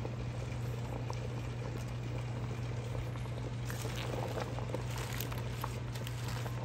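Water boiling in a stainless steel pot of spinach leaves as they steam, an even bubbling hiss with scattered small pops, over a steady low hum.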